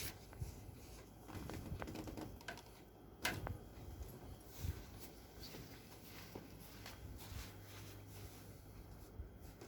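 Faint handling noises of a patient being worked on on a chiropractic table, with scattered light clicks and one sharp click about three seconds in.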